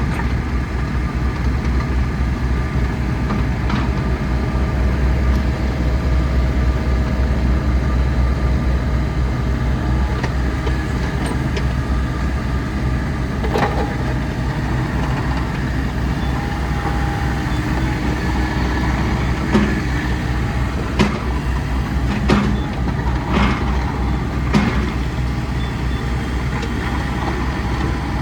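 Bobcat E35 mini excavator's diesel engine running steadily, with several sharp knocks during the second half.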